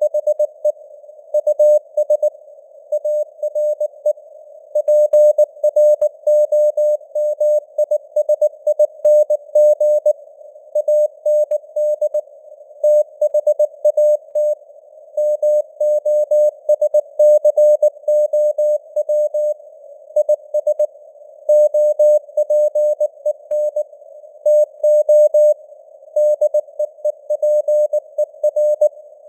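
Morse code (CW) sent as a single steady-pitched tone keyed on and off in dots and dashes at 19 words per minute, spelling out text. It sits in a narrow band of hiss from simulated radio noise, and the signal strength drifts up and down (QSB).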